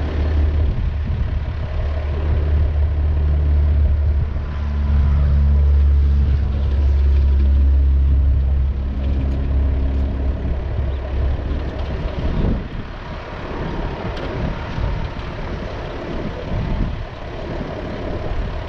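Diesel engine idling steadily, growing louder from about two seconds in and dropping back about twelve seconds in.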